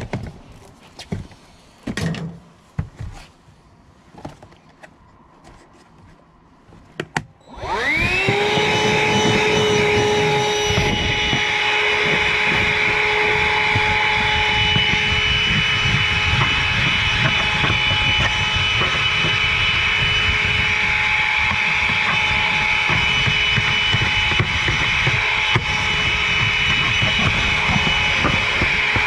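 Black+Decker Dustbuster Flexi 10.8-volt cordless hand vacuum switched on about seven seconds in. Its motor spins up quickly to a steady whine over a rush of suction as the crevice tool is worked over carpet. Before it starts there are a few knocks and clicks.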